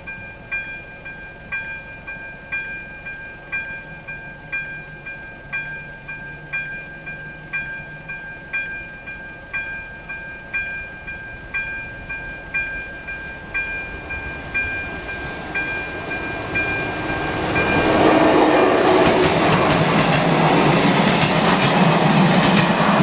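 Level-crossing warning bell (AŽD ZV-02) striking about once a second over a steady tone. From about 17 seconds in, a České dráhy passenger train passes over the crossing and its rising rail rumble covers the bell.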